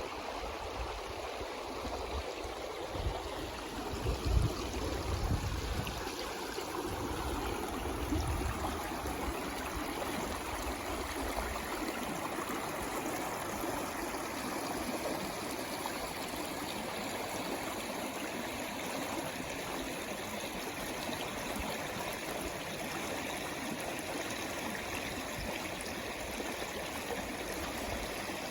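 Water flowing steadily in a stream, an even rushing and babbling. Low rumbling bumps come and go during the first third, loudest about four seconds in.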